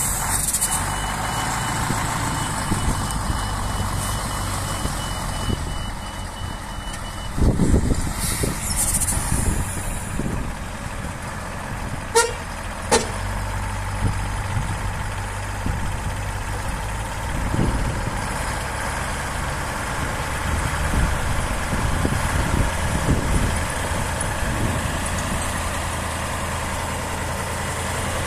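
Tatra 815 8x8 dump truck's diesel engine running as it moves slowly over a dirt track, with a thin steady high whine that stops about seven seconds in and louder surges just after. Two short sharp sounds come about twelve seconds in. After that the engine runs steadily while the tipper body is raised.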